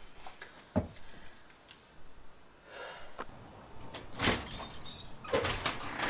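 A storm door being opened, with the latch clicking and the door knocking and rattling in its frame in the last couple of seconds. A single sharp click comes about a second in.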